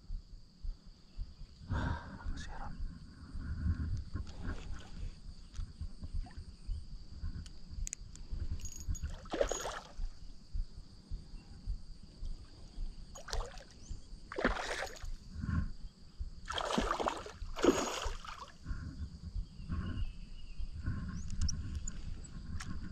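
A hooked fish splashing at the water's surface several times while it is played on an ultralight spinning rod, each splash short and sharp, over a steady low rumble.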